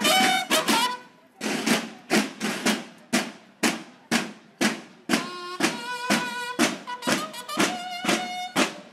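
Marching band of bugles and marching drums playing a march. The bugle notes break off about a second in, leaving the drums beating a steady rhythm alone, and the bugles come back in with held notes about five seconds in.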